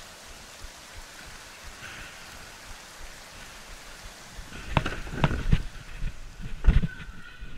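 Stunt scooter rolling over plywood skate ramps with a steady rushing wheel-and-air noise, then a cluster of loud knocks and clatters about five seconds in as the scooter bangs against the ramp and is jolted around.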